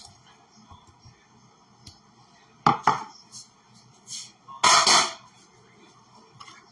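Kitchenware being handled: a sharp clink about two and a half seconds in, then a louder clatter lasting about half a second near the five-second mark.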